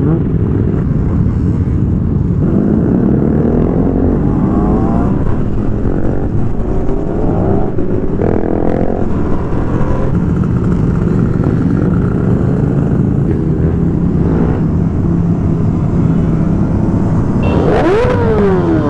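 Several motorcycles running together, including the Ducati Monster 695's air-cooled L-twin, with the engine pitch rising and falling as they accelerate and ease off. Near the end, throttles are blipped repeatedly in quick rises and falls.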